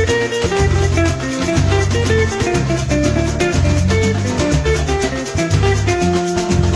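Background music: plucked strings over a changing bass line, with a shaker keeping a steady beat.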